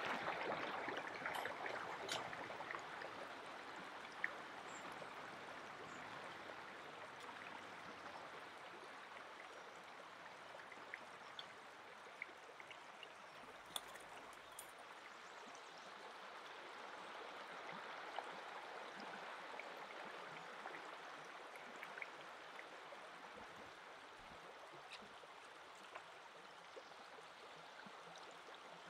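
Shallow river running over a stony bed, a steady babble of water. A few light clicks and taps are scattered through it.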